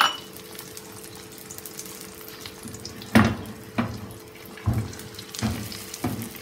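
Beaten egg sizzling in oil on a hot tawa, a steady hiss, with a fork scraping and knocking against the pan about five times in the second half as the egg is spread out.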